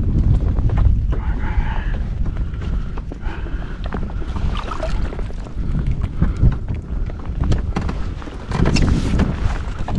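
Wind buffeting the microphone in a heavy low rumble, with scattered small knocks.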